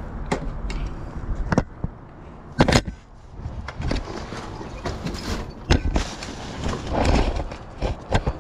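Irregular knocks, clunks and rustling of discarded household items being picked up and moved about, with the sharpest knocks about one and a half and almost three seconds in, over a low steady rumble.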